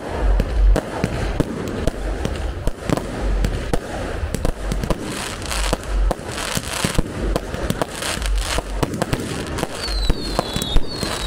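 Aerial fireworks going off in quick succession: a dense run of sharp bangs from bursting shells over low launch thuds, with stretches of hiss and crackle. Whistles join near the end.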